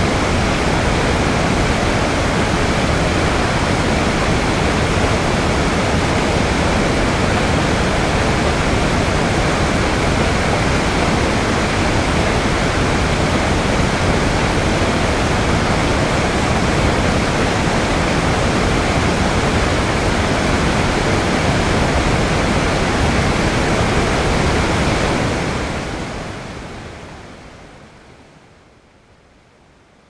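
Recorded waterfall sound: a steady, even rush of falling water that fades out over the last few seconds.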